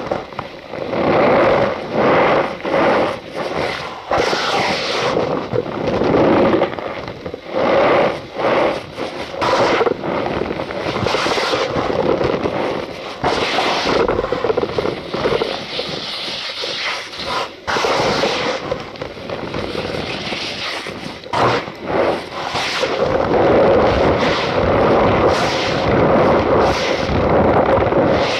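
Cornstarch powder being squeezed and crushed by hand, a steady run of squeaky crunches in quick, irregular bursts.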